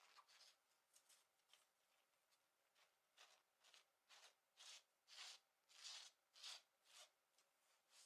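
Fingernails scratching clothing fabric in a series of soft, quick strokes, roughly two a second, faint at first and louder from about three seconds in.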